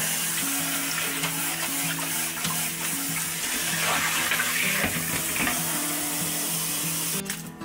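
Cold tap water running into a stainless steel mesh strainer of cooked noodles while a hand swishes and rubs them under the stream. The water cuts off sharply near the end. Soft background music plays underneath.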